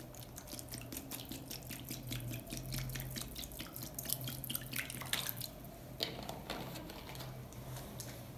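Water poured from a plastic bottle into a shallow plastic tub, splashing onto a phone lying in it: a rapid run of splashes that stops about five seconds in, followed by a few single drips and splashes.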